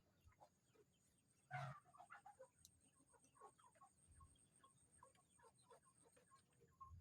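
Faint chicken clucking mixed with scattered short bird chirps, with one louder call about a second and a half in.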